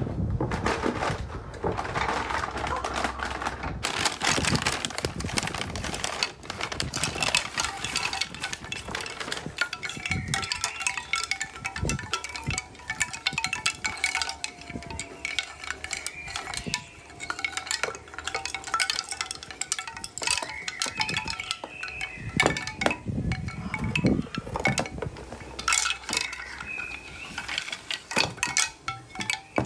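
Hollow bamboo wind chime tubes clacking against each other as they are handled and lifted out of their box, each knock followed by a short wooden ring. Paper wrapping and cardboard rustle near the start.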